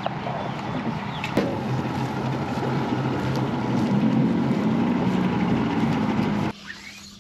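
Motorboat's outboard engine running steadily, getting louder over the first few seconds, then cutting off abruptly about six and a half seconds in.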